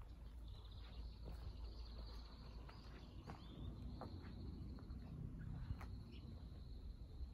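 Quiet outdoor ambience: a high, finely pulsing trill runs in three long stretches, breaking off briefly about three and a half seconds in and again near five seconds. Under it there is a low steady rumble and a few soft footstep clicks on gravel.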